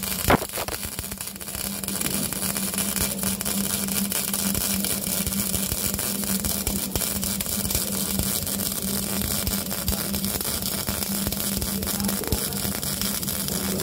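Electric arc welding on a pipe: a steady crackling hiss from the arc over a constant hum, starting with a sharp click.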